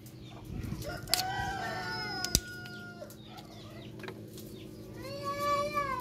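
A rooster crows twice, two long drawn-out crows, the second rising and falling in an arch near the end. One sharp click comes a little after two seconds in.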